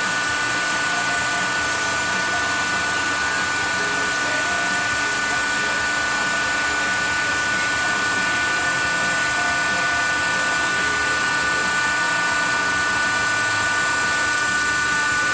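Steady high-pitched whine of a machine tool running while a cylinder head's combustion chambers are polished, holding several fixed tones over a hiss.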